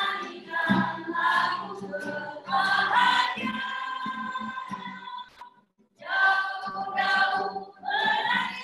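A group of voices singing together, with a brief break a little past five seconds in.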